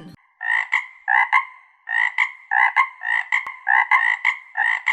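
Frog croaking sound effect, a quick double chirp repeated about two times a second, around nine times in all.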